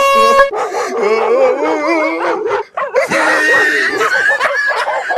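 An air horn blast that cuts off about half a second in, followed by a dog yelping and howling.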